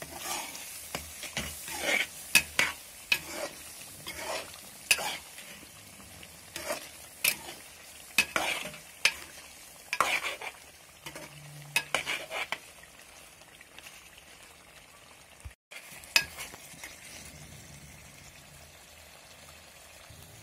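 Metal ladle scraping and knocking against the sides and bottom of a metal cooking pot while stirring chicken karahi, over a low sizzle of the gravy. The stirring stops about two-thirds of the way through, and only the sizzle goes on.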